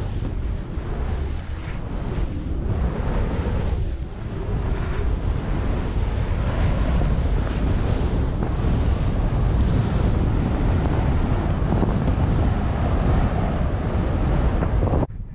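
Air rushing over the microphone of a body-mounted camera on a skier going downhill through deep powder, with the hiss of skis cutting through the snow. It is a steady, heavy rumble that cuts off suddenly near the end.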